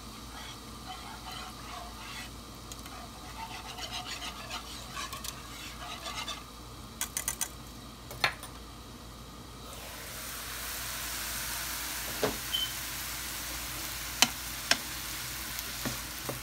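Mushrooms frying in olive oil in a pan, with a utensil stirring and clicking against it. The sizzle is quiet at first and grows louder about ten seconds in, with a few sharp clicks over it.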